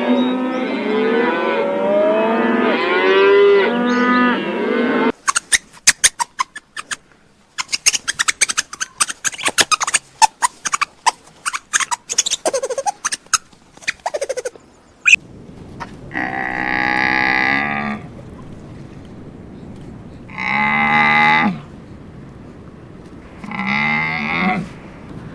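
Cattle mooing: several calls overlap for the first five seconds. A stretch of rapid, irregular clicks and knocks follows. Near the end come three separate long moos.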